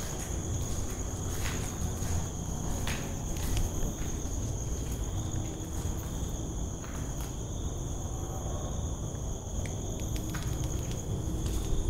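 Steady high-pitched insect chorus with a few scattered footsteps and clicks on a hard floor, over low handling rumble.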